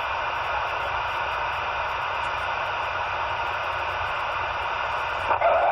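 Steady hiss of CB radio static on an open channel, with a transmission breaking in near the end.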